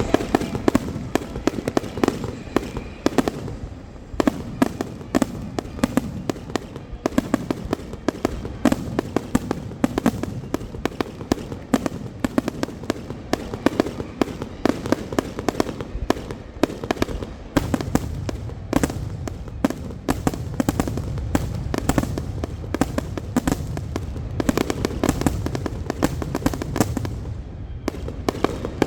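Fireworks going off in a rapid, dense barrage of bangs and crackling pops, many reports a second without a break, over a low rumble.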